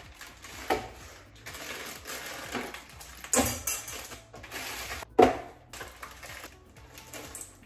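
Plastic pouch of brownie mix crinkling and rustling as it is handled and emptied, with a few sharp louder crackles, the loudest about five seconds in.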